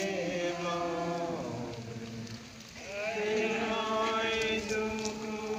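A group of voices chanting a hymn-like prayer in unison, in long held notes that slide from one pitch to the next, with a short pause about halfway through before the next line begins.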